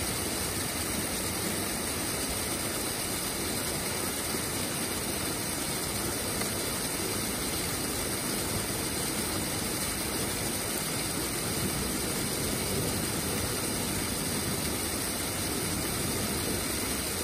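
Steady rushing roar of a waterfall, an even noise holding the same level throughout.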